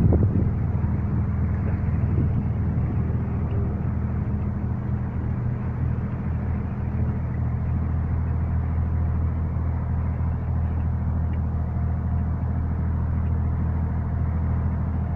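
An engine running steadily at low speed: an even, low hum that holds the same pitch throughout.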